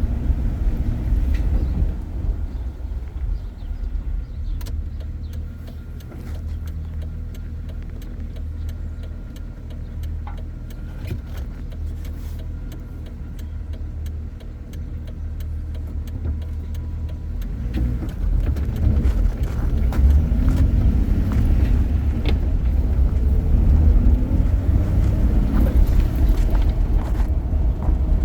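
A Jeep on the road, its engine and road noise as a steady low rumble. It is quieter for a while, then grows louder again about two-thirds of the way in, the engine note rising as it speeds up.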